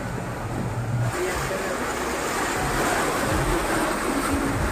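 Vehicles driving through deep floodwater: water surging and splashing against the wheels, over a low engine hum. The rush of water gets louder about a second in.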